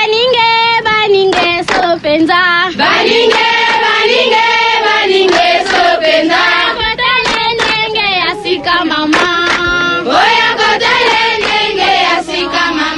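A recorded chant of singing voices with vibrato, cut by sharp percussive hits: a sound drop played on air to send a caller off.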